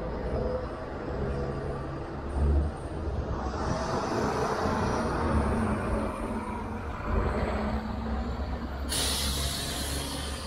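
City street traffic running past, with a passing vehicle swelling about four seconds in. Near the end a school bus's air brakes let out a sudden hiss.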